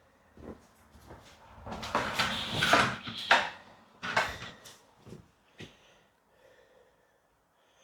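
Rustling and knocking as the packaging and parts of a camera kit are handled, loudest in a burst about two to three seconds in, followed by a few separate sharp clicks.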